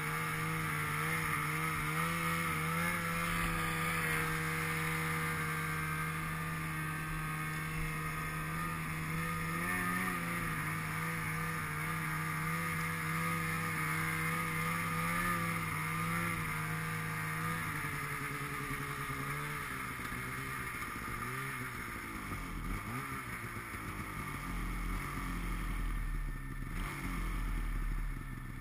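800-class two-stroke snowmobile engine running at a steady cruise, then easing off about two-thirds of the way through, its pitch dipping and rising as the throttle changes.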